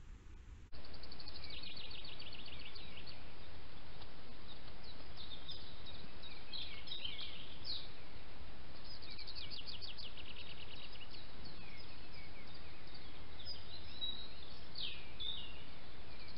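Several songbirds singing, with fast trills and short chirps, over the steady hiss of a trail camera's microphone. The hiss and song begin abruptly less than a second in.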